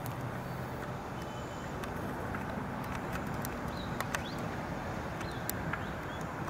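Outdoor background rumble of road traffic, with a low vehicle engine hum that fades out a second or two in. A few short bird chirps come in the second half.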